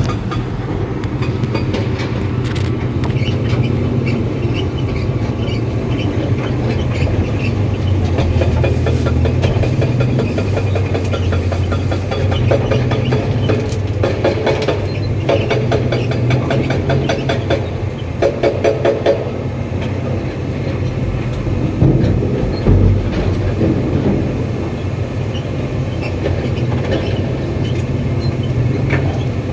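Excavator's diesel engine running with a steady low drone while its steel tracks clank and rattle, with a stretch of faster rhythmic clattering a little past the middle; the track undercarriage is said to be faulty.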